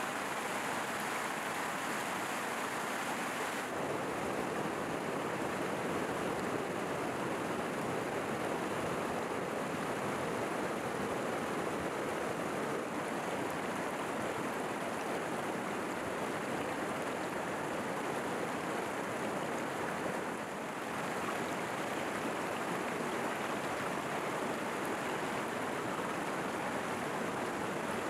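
Steady rush of a fast, shallow mountain stream running over rocks. Its tone shifts slightly about four seconds in and again about twenty seconds in.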